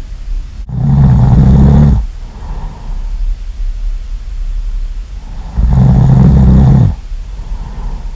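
Loud snoring: two long, deep snores about five seconds apart, with quieter breathing between them.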